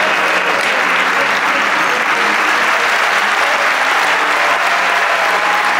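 Live audience applauding steadily, a dense even clapping.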